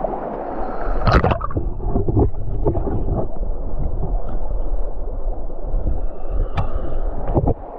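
Underwater sound of a stream heard from below the surface: a steady rush and gurgle of moving water, with a few sharp clicks, the loudest about a second in and two more near the end.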